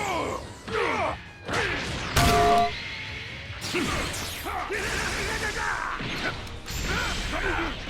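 A rapid string of meme sound effects: squeaky gliding voice sounds, crashes and thwacks, with a loud short held tone about two seconds in.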